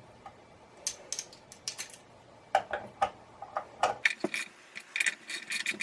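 Light metallic clicks and clinks of small bandsaw parts and tools being handled during reassembly, a few at first, then quicker and more ringing from about halfway.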